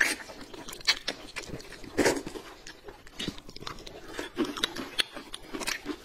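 Close-up mouth sounds of eating: wide buckwheat noodle sheets being slurped and chewed, with wet smacks and clicks, and one loud slurp about two seconds in.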